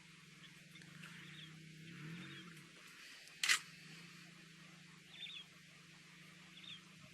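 A low steady hum runs underneath, with one sharp click about three and a half seconds in and a few short, high chirps later on.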